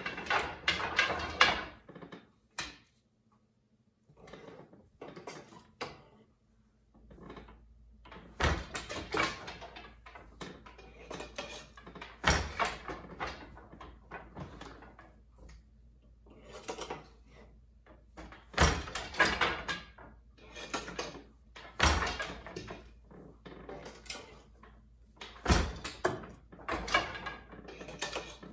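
Glimåkra standard wooden floor loom weaving overshot: wooden boat shuttles are thrown and caught through the shed, with clattering of wood between picks. The beater knocks hard against the cloth, five heavy thuds a few seconds apart, as each pattern and tabby pick is packed in.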